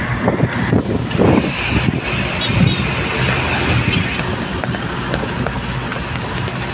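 Steady engine and road noise from a moving vehicle, with a low drone.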